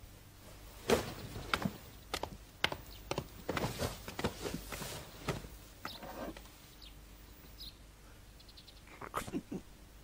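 A scattered series of light knocks and clicks, like objects being handled, bunched in the first half and again near the end.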